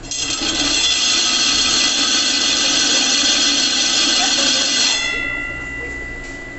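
Gural cheese slicer's spinning round blade being ground by its sharpener, giving a loud, high-pitched grinding squeal. The squeal starts abruptly, eases off after about five seconds and leaves a thin steady whine.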